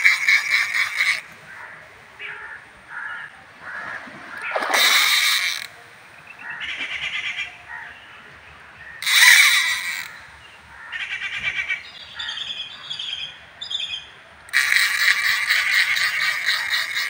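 Fishing reel clicking in loud bursts of rapid clicks, a second or more each, while a hooked catla is played on the rod. Small birds chirp faintly near the end.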